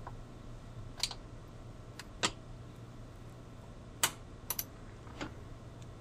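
A handful of sharp, irregularly spaced metal clicks from a ratchet and socket as it snugs up the small mounting screws of a washing machine timer.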